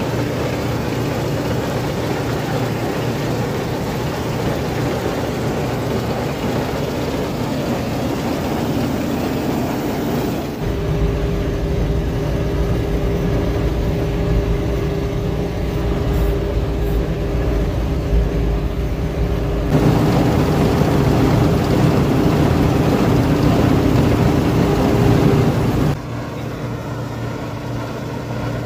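Claas Dominator 48S combine harvester running at work in wheat, a steady hum of engine and machinery with a low drone. The sound changes abruptly about ten seconds in, again about twenty seconds in, and near the end, shifting between a heavier, louder drone and a lighter hum.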